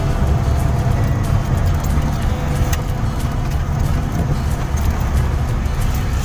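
Steady low rumble of engine and road noise heard inside the cabin of a moving vehicle.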